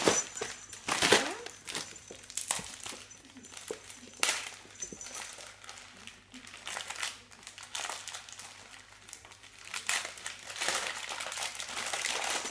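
Gift-wrapping paper crinkling and rustling in irregular bursts as a dog noses and pulls at a wrapped present.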